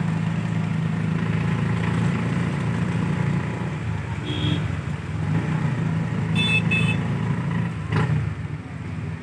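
A small vehicle engine running steadily while driving, with a short horn toot about four seconds in and two more quick toots a couple of seconds later.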